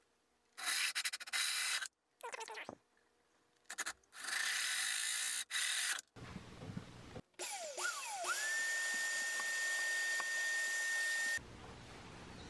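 A 1 1/8 inch hole saw on a drill cutting through a panel in several short grinding, scraping bursts. Later the drill's motor whine rises and holds one steady pitch for about three seconds, then stops.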